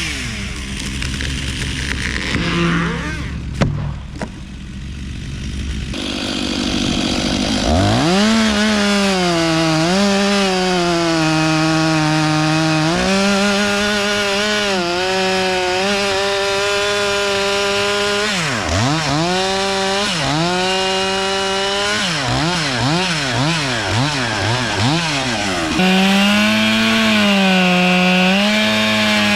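Two-stroke chainsaw running: low at first, then revving up about seven seconds in and held at high speed, its pitch sagging and recovering, with quick throttle blips later on. A single sharp knock about three and a half seconds in.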